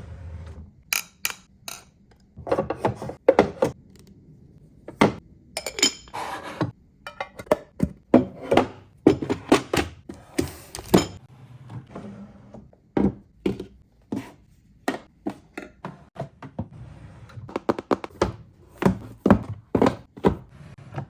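Irregular thunks and knocks with occasional clinks, as hard objects are handled and set down on furniture, with a brief rustling or sliding noise about ten seconds in.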